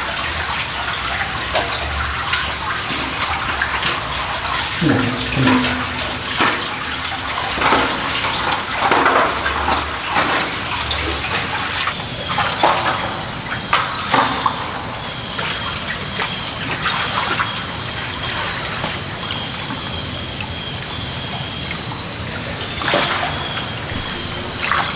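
Shallow water trickling along the floor of a concrete drain pipe, with sharp splashes of steps in the water during the first half.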